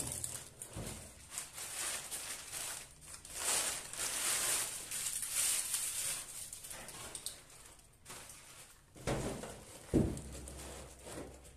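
Rustling of clothes and plastic packets being handled and pulled from wardrobe shelves, with two soft thumps near the end as things are knocked or set down.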